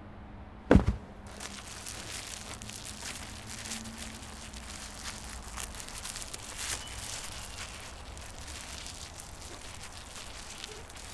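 A heavy thump about a second in, then continuous crackling and rustling dotted with small clicks, over a faint low hum.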